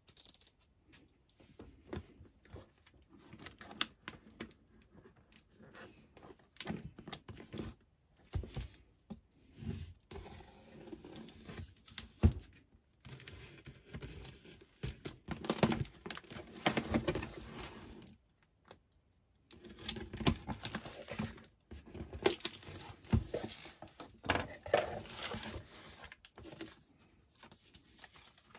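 Packing tape picked at and torn off a cardboard shipping box, then its cardboard flaps opened and paper inserts handled: irregular tearing, crinkling and light knocks, with a few longer rasping tears.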